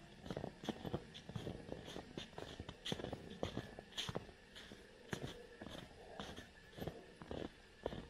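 Footsteps crunching through snow at a walking pace, about two steps a second, with smaller crackles between the steps.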